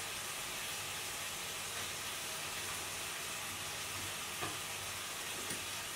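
Fermented birch sap sizzling steadily in a hot pan as it reduces down, steaming hogweed stems, lettuce, spring onion and oyster mushrooms.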